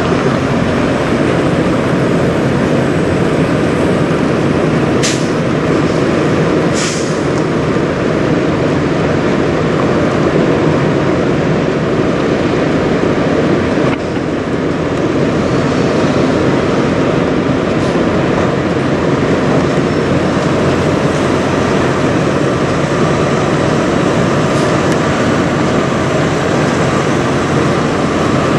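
Steady rumble of semi-truck diesel engines, with two sharp clicks about five and seven seconds in.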